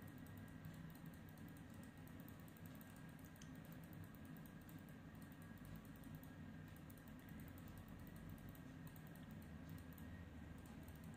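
Sulphur-crested cockatoo making faint, rapid, irregular clicking sounds, keyboard-like ticks that keep coming in quick succession while it 'thinks'.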